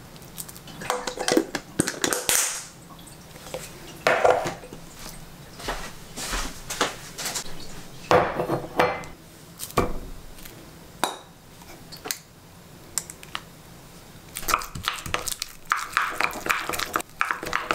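A small spoon clinking and scraping against a glass sauce boat as pollock roe and mayonnaise go in, with scattered sharp clinks. From a little past the middle it turns to quick repeated clinking as the roe and mayonnaise are stirred together.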